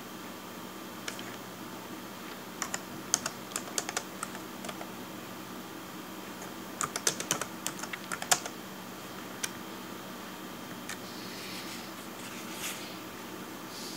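Typing on a Dell Latitude D630 laptop keyboard as a search phrase is entered: two short runs of key clicks a few seconds apart, then a few single key taps.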